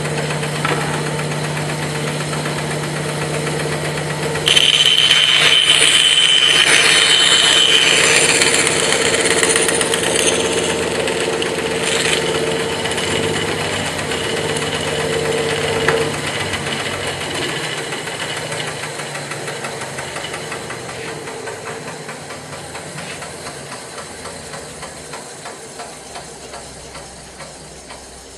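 Bandsaw running, its blade cutting a notch in timber. It hums steadily, then from about four seconds in it is louder with a high whine and hiss while the blade is in the wood. About sixteen seconds in there is a click, and the saw runs down, fading slowly.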